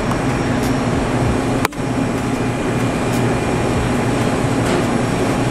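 Steady hum and whoosh of refrigerated display-case fans and building ventilation, with a brief dropout in the sound about a second and a half in.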